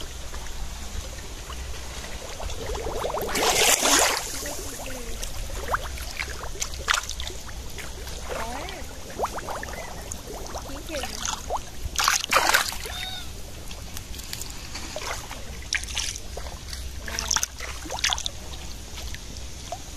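Fish thrashing and splashing in the shallow water of a nearly drained pond, with short splashes scattered through and the loudest about four seconds in, around twelve seconds, and near seventeen seconds, over a steady low hum.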